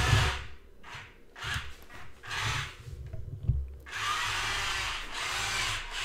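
Two 130-size electric motors and gearboxes of a WPL E1 RC tracked vehicle whining as it is driven through a turn with one track stopped. The whine rises and falls in short spurts of throttle, then runs steadily from about four seconds in.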